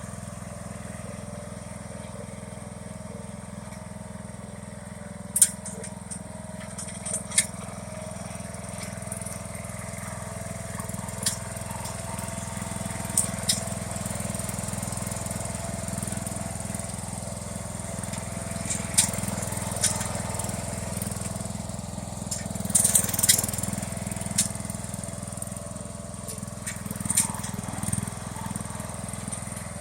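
John Deere Hydro 165 lawn tractor engine running steadily while its front plow blade pushes piles of sticks and debris. Scattered sharp cracks and knocks come through, the loudest about five seconds in and a cluster around twenty-three seconds.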